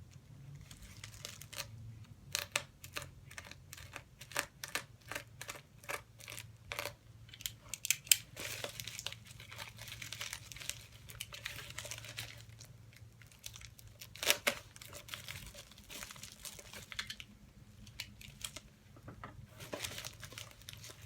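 A mailed package being cut along the top and pulled open by hand: a string of short, sharp scrapes and snaps, then longer stretches of crinkling and tearing of the packaging.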